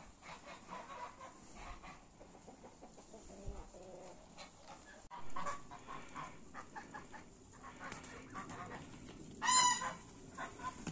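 Chickens clucking, with one louder, sharper call about nine and a half seconds in.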